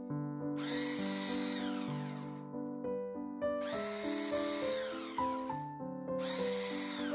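Immersion blender pureeing boiled potatoes with buttermilk, running in three bursts of about two seconds, its whine falling in pitch as the motor winds down after each burst. Background music plays throughout.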